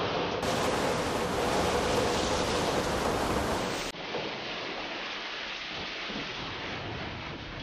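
Rain falling on karst rock. About four seconds in, a sudden cut brings water gushing and splashing as it pours into a cave through the karst.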